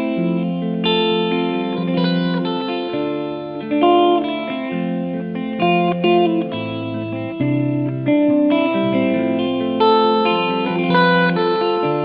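Background music: an instrumental guitar track, plucked notes with effects.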